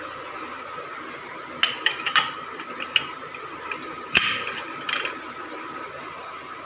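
Metal clanks and clicks of a pressure cooker lid being put on and locked shut: about six sharp knocks over a few seconds, the loudest about four seconds in. A faint steady high hum runs underneath.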